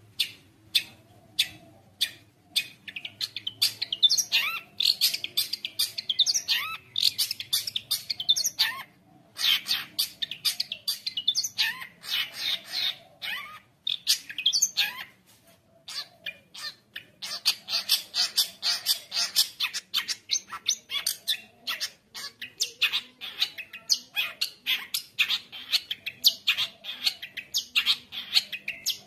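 Long-tailed shrike (cendet) singing in full voice: rapid strings of short, sharp notes, several a second, packed with imitations of other birds. It breaks off briefly about nine seconds in and again about fifteen seconds in.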